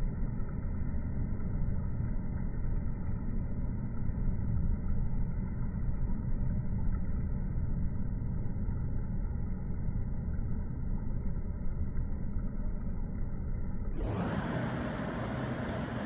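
Steady low outdoor background rumble with no distinct events. It sounds muffled until near the end, when it suddenly turns brighter and hissier.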